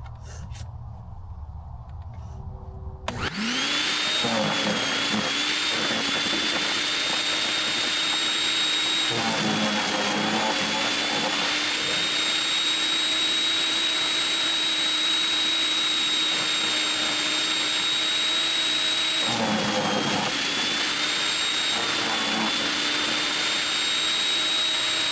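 Portland electric wood chipper switched on about three seconds in, its motor running with a steady high whine. Several times, around four, ten and twenty seconds in, branches fed into it are chewed with a rougher crunching sound and the whine dips briefly under the load.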